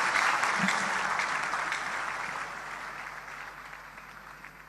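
Large audience applauding, the clapping dying away gradually.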